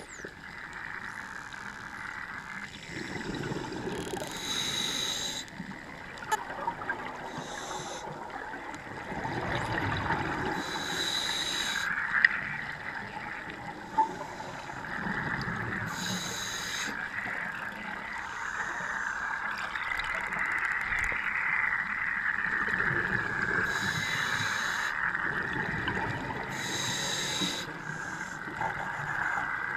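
Underwater recording of scuba divers breathing through regulators. About six hissing, bubbling exhalation bursts come every few seconds, over a steady underwater background noise.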